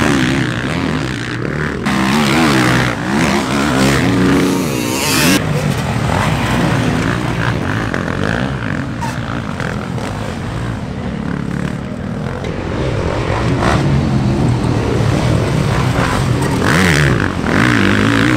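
Motocross bike engines revving, their pitch rising and falling with the throttle. There is a lower, quieter stretch in the middle, and a bike revs hard again near the end.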